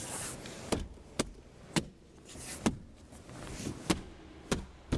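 A plastic car-door trim panel being pressed and tapped into place by hand. There is a brief rustle, then about six sharp knocks and snaps at uneven intervals as the panel's clips seat into the door.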